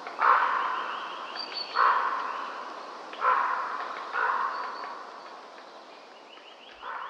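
A bird's harsh, cawing calls, repeated about every one and a half seconds and fading after each, with faint higher chirps above them.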